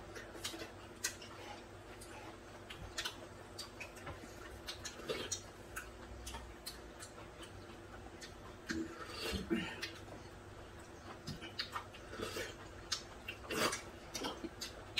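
Close-miked eating of cold bean-soup noodles: frequent light, irregular clicks of chopsticks and a spoon against wooden bowls, with chewing and a few louder sips and slurps.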